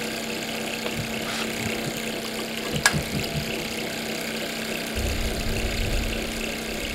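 Small walking-beam Stirling hot air engine running steadily at about 1900 rpm, its ball-bearing linkages and flywheel turning a small DC generator, with a steady hum. A single sharp click comes about three seconds in, and a low rumble joins in near the end.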